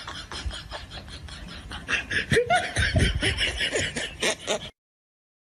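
People laughing in loud, quick bursts from about two seconds in. The laughter cuts off suddenly near the end.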